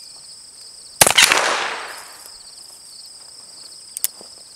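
A single shot from a black-powder percussion revolver about a second in, its report dying away over about a second. A short click follows near the end, with insects chirring steadily in the background.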